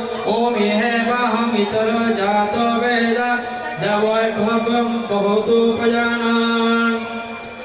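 Mantra chanting by a single voice, in long held notes that step between a few pitches.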